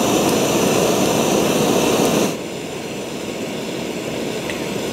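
Handheld gas torch flame with a steady, loud rushing hiss as it sears oysters in their shells. A little past halfway the noise drops abruptly to a fainter steady hiss.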